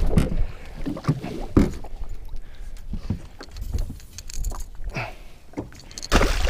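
Handling noise on a small fishing boat: scattered knocks and bumps against the boat as a pike is handled over the side. Wind rumbles on the microphone at the start and again near the end.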